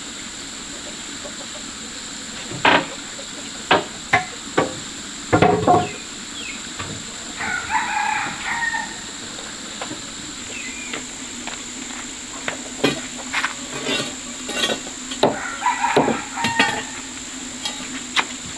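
A rooster crowing twice, once about a third of the way in and again near the end, with sharp knocks and clicks scattered between.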